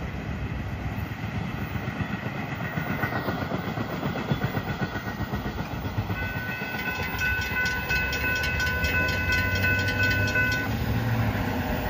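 Freight cars rolling past on the rails with a steady rumble and wheel clatter. About halfway through, a railroad grade-crossing bell rings loud with rapid even strokes, then stops near the end as the crossing gates lift.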